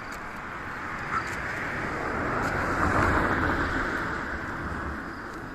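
A road vehicle passing by, its tyre and engine noise swelling to a peak about three seconds in and then fading, with a low rumble underneath.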